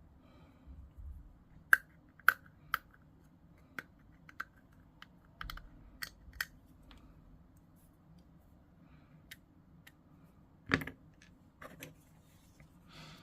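Plastic miniature parts being clipped from the sprue and handled on a desk: irregular sharp clicks and snips, the loudest a group of three about two seconds in and a single one near eleven seconds.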